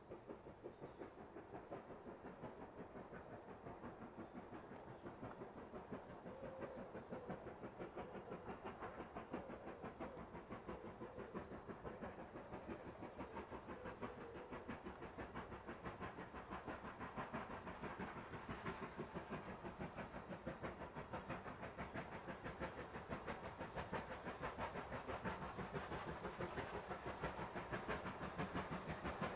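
Steam-hauled train approaching, a rapid regular beat that grows steadily louder.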